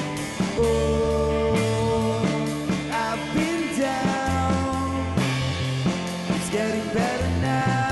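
Live rock band playing, with electric bass, electric guitar and a male voice singing into a microphone over a steady beat.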